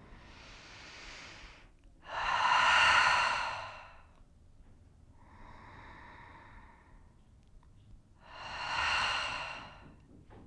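Deep yoga breathing: a quiet inhale, then a loud exhale out through the mouth lasting about two seconds, done twice.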